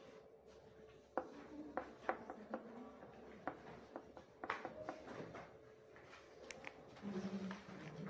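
Quiet room tone with a scattering of faint short clicks and taps, about a dozen spread through the time, and a low steady hum for the last second.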